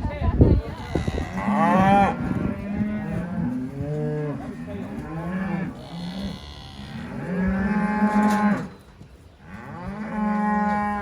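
Cattle bawling: several long, loud calls overlap one after another, with a short lull about three-quarters of the way through.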